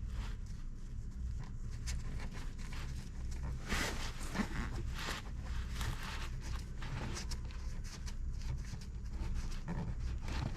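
Plastic cable ties being threaded and pulled tight around a car's fuel lines to stop them rattling against the frame: irregular zipping, clicking and scraping handling sounds over a steady low hum.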